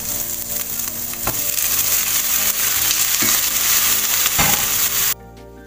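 Raw chicken pieces sizzling loudly in hot oil in a pan with onion, garlic and ginger as they are stirred, with a few knocks of the spatula. The sizzling cuts off suddenly about five seconds in, leaving soft background music.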